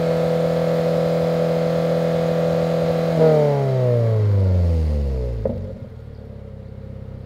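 2022 Toyota GR86's 2.4-litre flat-four engine, heard through a Remark Sports Touring stainless-steel cat-back exhaust. It is held steady at 5000 rpm, then released about three seconds in, and the note falls as the revs drop back to idle. A short snap comes just as it settles.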